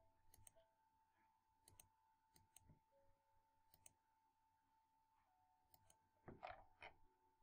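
Faint computer mouse clicks, a handful of single and double clicks spread through a few seconds of near silence, as curves are picked one by one in CAD software. A faint steady hum lies underneath, and a brief faint murmur of voice comes near the end.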